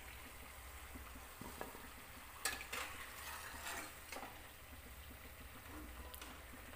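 Faint steady hiss of oil frying, with a few soft rustles and light taps between about two and four seconds in as fried paneer pakoras are laid out on tissue paper.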